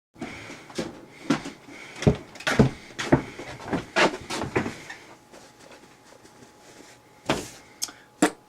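A rapid, irregular series of sharp knocks and clatters, about a dozen in the first five seconds, then two louder single knocks near the end, like things being banged or doors and cupboards knocked in a small room.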